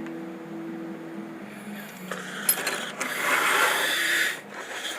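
Small steel wrenches rattling and clinking together as they are handled and sorted. A denser spell of jangling runs from about two to four and a half seconds in.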